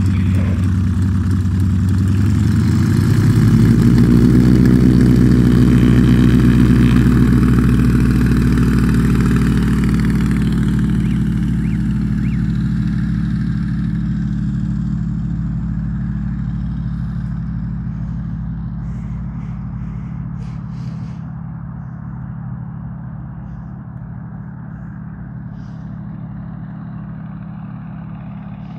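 The piston engine of a light propeller tow plane runs up to full power about two to three seconds in, then holds a steady drone that slowly fades as the aerotow takes off and climbs away.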